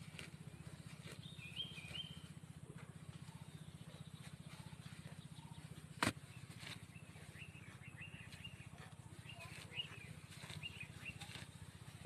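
Birds chirping in short calls over a steady low mechanical hum, with one sharp click about six seconds in.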